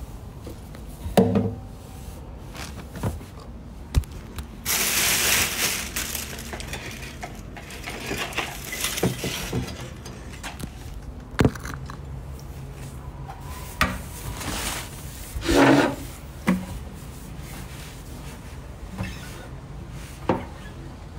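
Handling noise from a phone being moved about and propped up: scattered knocks and rubbing, with a longer rustle about five seconds in and a heavier bump near the end, as an acoustic guitar is picked up and set in place.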